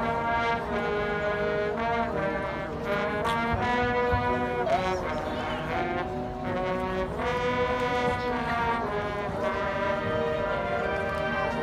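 Marching band brass playing held chords, moving to a new chord about once a second.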